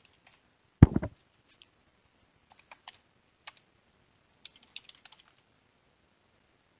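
Computer keyboard typing in short bursts of keystrokes, with one heavy thump about a second in that is the loudest sound.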